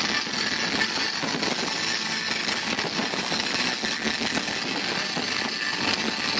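Fireworks crackling continuously, a dense rapid patter of small pops with no single big bang.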